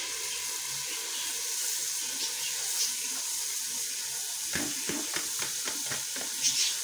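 Steady sizzling hiss as wet, washed split urad dal (mash) is poured into hot oil and masala in an aluminium pressure cooker, with a few short metal knocks in the second half.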